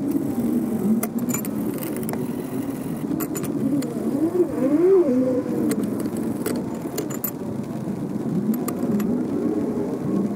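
A blade scraping rust off the steel stanchion tubes of a bicycle suspension fork: steady scraping strokes with scattered sharp clicks as the blade catches.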